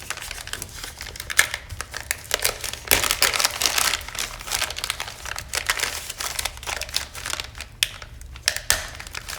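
Thin plastic sheeting crinkling and crackling as it is peeled and pulled out of the folds of a freshly cast resin sculpture that is still slightly flexible. The crackling is irregular and busiest about three to four seconds in.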